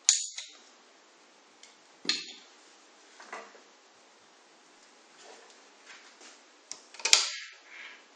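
Sharp clacks and clicks of hard plastic and metal from handling a fibre-optic fusion splicer and its fibre-preparation tools while loading a fibre. There are four main clacks, the loudest at the very start and about seven seconds in, with a few fainter ticks between.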